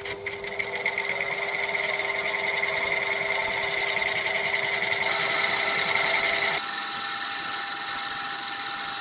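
Metal lathe starting up and turning a casting under a facing cut, a steady mechanical whine that comes in suddenly. Its tones jump higher in pitch about five seconds in and again at about six and a half seconds.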